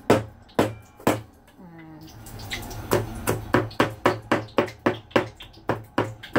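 Garlic cloves being smashed flat for cooking, a run of sharp knocks: three about half a second apart, a pause, then an even run of about four knocks a second.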